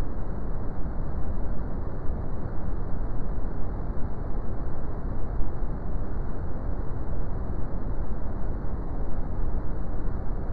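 Brown noise: a steady, deep rushing hiss, loudest in the lows and with almost no treble.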